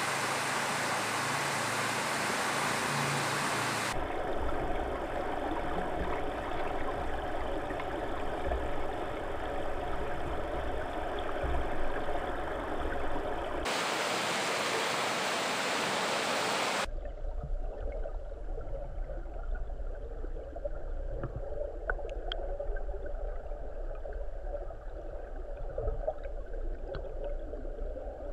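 Fast river water rushing over rocks, a steady hiss that changes tone abruptly at each cut. About two-thirds of the way in it gives way to the muffled low rumble of the flowing river heard underwater, with a few faint clicks.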